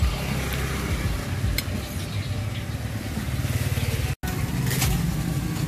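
A vehicle engine running close by, a steady low hum under street noise, with a few faint clicks. The sound drops out for an instant about four seconds in.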